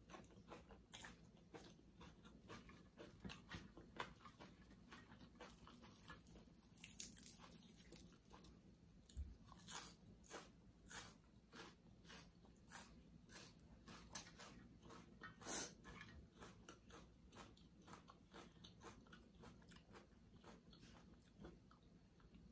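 Quiet, close-up mouth sounds of a person eating glass noodle salad with raw greens: a steady run of chewing, soft crunching and wet mouth clicks, with a few louder crunches about 4, 7, 10 and 15 seconds in.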